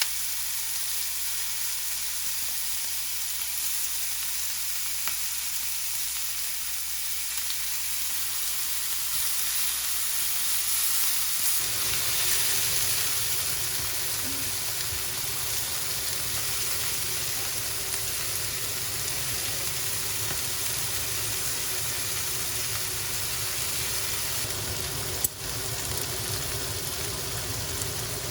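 Food sizzling steadily in a hot frying pan. About twelve seconds in a low rumble joins the hiss, and a single sharp click comes near the end.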